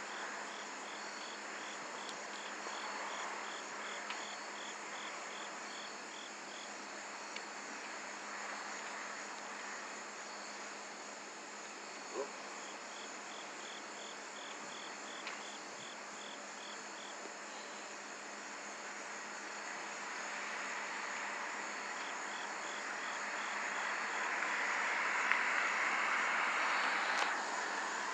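Insects chirping: a steady high trill, with a pulsed chirp of about four a second that comes and goes in bouts. A broad rushing noise swells over the last several seconds and fades near the end.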